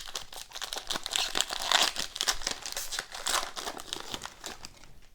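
Foil wrapper of a hockey card pack crinkling and tearing as it is ripped open, with the cards rustling against it. The crackle comes in surges, loudest about halfway through, and thins out near the end.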